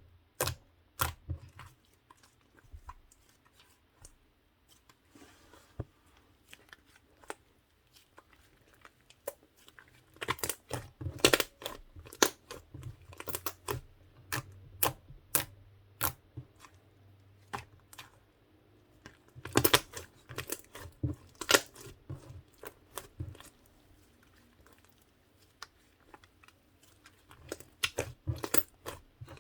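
Mint-chocolate slime being squished and kneaded by hand, giving irregular sharp pops and clicks, in denser bursts now and then.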